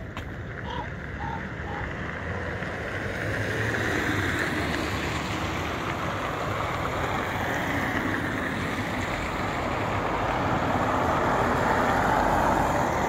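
Road traffic passing on a city street: a steady noise of tyres and engines that swells twice as vehicles go by.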